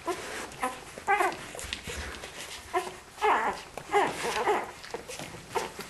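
Week-old Australian Kelpie puppies whimpering and squeaking in a litter: many short, high calls, thickest a little after a second in and again from about three to four and a half seconds in.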